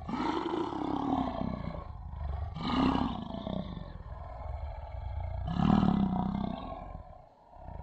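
Lion roaring: three long roars about two and a half seconds apart, the last the loudest, over a low rumble.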